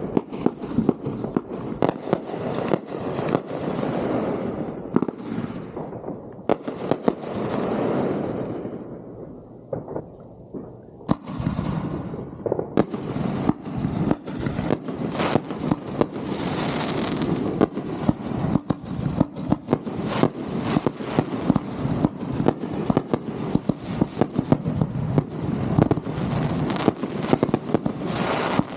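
Aerial fireworks going off in a dense barrage: rapid sharp reports over continuous crackling, easing briefly about ten seconds in before building into an even denser run of rapid cracks.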